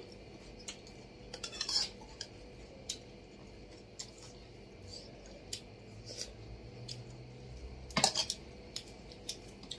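Scattered light clinks and scrapes of a steel serving spoon against steel bowls and plates, with a few louder clusters about two seconds in and near the end.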